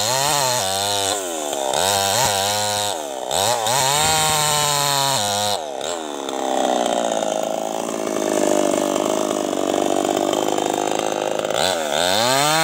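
New West 588 two-stroke chainsaw cutting a felled teak log, the engine revving up and down repeatedly in the first half, then running at a steadier pitch for several seconds before rising again near the end.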